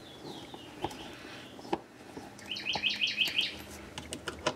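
A bird gives a quick run of about eight high chirps a little past the middle. Around it are a few sharp clicks from a screwdriver working the screws of a cover panel.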